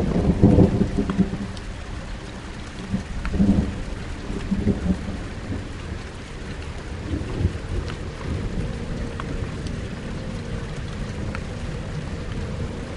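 Steady rain with thunder rumbling: a heavy rumble just after the start, another about three and a half seconds in, then weaker swells. A faint low held drone sits under the rain in the second half.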